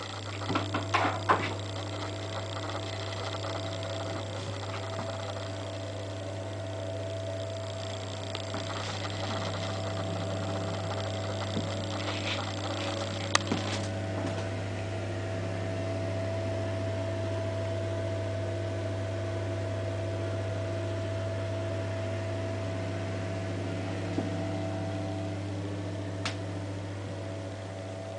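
A steady low mechanical hum with a fainter higher tone over it. About a second in, a few clicks and knocks as a metal lever door handle is worked, with single sharp clicks later on.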